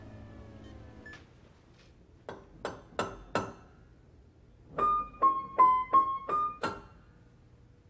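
Piano notes played one at a time by hand: four spaced single notes, then a quicker little figure of six higher notes that steps down and back up, each left to ring briefly. Held tones fade out in the first second before the notes begin.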